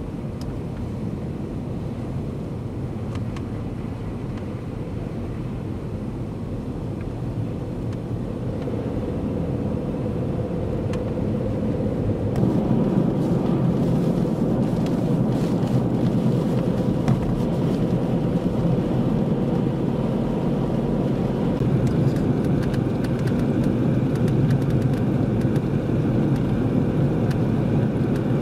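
Steady road and wind noise from inside a moving vehicle driving on a snowy highway, growing louder about twelve seconds in.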